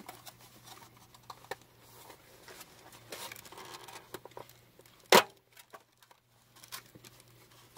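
Crinkling, crackling plastic packaging of banana peppers being worked open by hand, with one sharp, loud snap a little over five seconds in.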